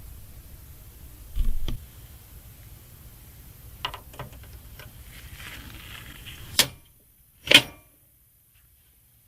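Hyte Y70 Touch PC case hatches being handled and closed: scattered knocks and light clicks, then two sharp snaps about a second apart near the end as the panels click shut.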